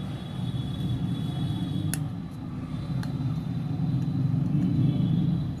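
A steady low rumble, like a motor vehicle running, with two light clicks about two and three seconds in.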